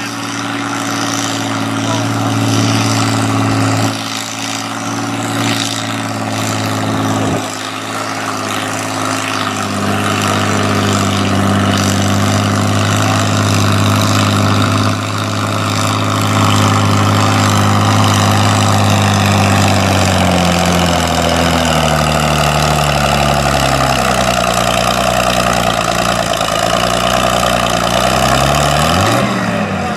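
Farm pulling tractor's engine running hard under load on a pull, its pitch holding steady, then falling steadily from about twenty seconds in as the engine lugs down near the end of the run, with a short rev just before it ends.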